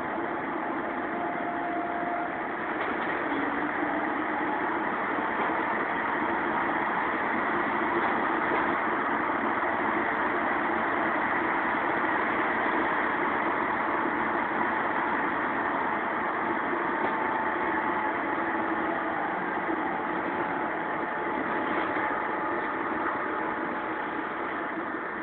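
Alsthom TFS tram running, a steady rumble of wheels and traction equipment with faint whining tones that drift slightly in pitch.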